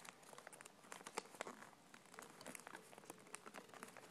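Faint crinkling and scattered soft clicks of a sheet of origami paper being folded and creased by hand.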